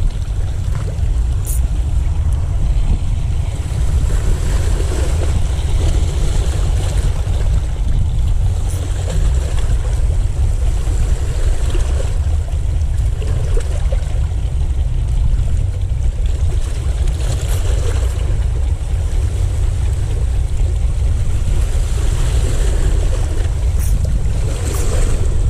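Wind buffeting the microphone as a steady low rumble, over the wash of the sea, with a few faint ticks.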